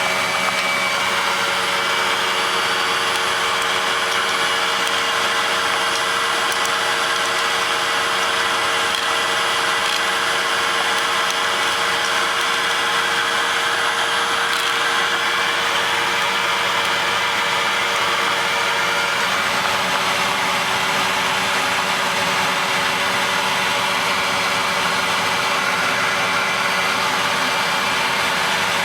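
Bagged vacuum cleaner running steadily, a loud motor whine over a rushing hiss of air; the motor note drops slightly about two-thirds of the way through.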